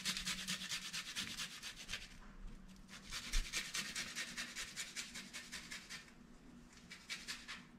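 Garlic cloves being grated on a small handheld metal grater: quick, even rasping strokes, about six a second, in three runs with short pauses about two and six seconds in.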